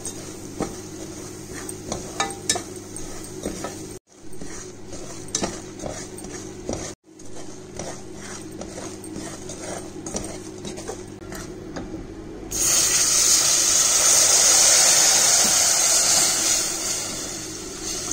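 A plastic spatula scrapes and clicks against an aluminium pot as semolina is stirred while it toasts and foams in hot butter. About twelve seconds in, liquid hits the hot butter and sets off a loud, sudden hissing sizzle that eases off near the end.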